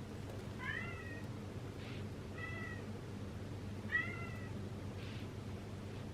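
A cat meowing three times, short calls about a second and a half apart, over a steady low background noise.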